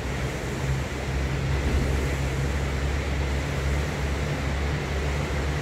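Concept2 SkiErg's air-resistance fan flywheel whirring steadily as the handles are pulled, with a low hum underneath.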